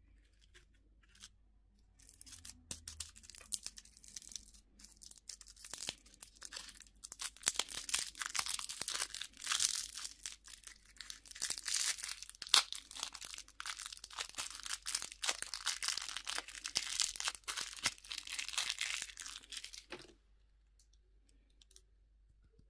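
Crinkly candy or toy packaging wrapper being crumpled and torn open, a dense crackling with many sharp snaps. It starts about two seconds in and stops suddenly a couple of seconds before the end.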